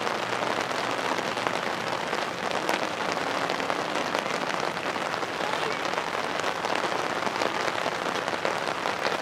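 Steady patter of light rain, an even crackling hiss.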